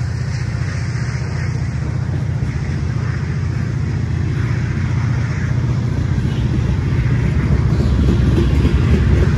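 Freight train cars, covered hoppers, rolling past on the rails: a steady low rumble of wheels on track that grows gradually louder toward the end.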